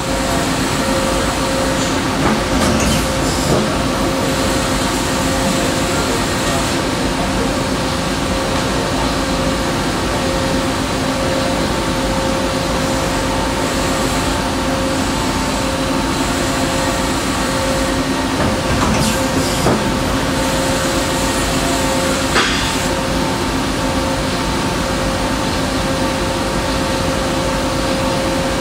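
2013 YCM TC Series 26 CNC lathe running under power: a steady machine hum with a constant whine at a fixed pitch. A few brief clicks or knocks come through, twice near the start and a couple more past the middle.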